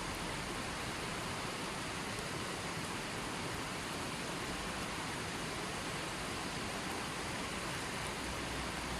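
Steady rushing of running water from a small spring, an even hiss with no breaks or changes.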